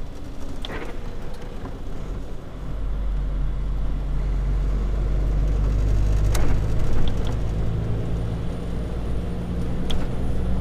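HGV's diesel engine running as the lorry drives along, with road rumble; about two and a half seconds in the engine gets louder and deeper as it pulls away under load.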